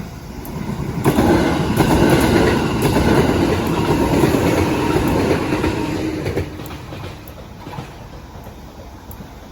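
Train passing over a level crossing, its wheels clattering over the rails. It grows loud about a second in and drops away after about six and a half seconds.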